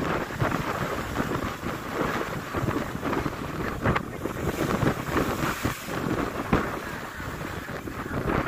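Wind gusting across the microphone with a low rumble, over the rush of waves breaking on the shore.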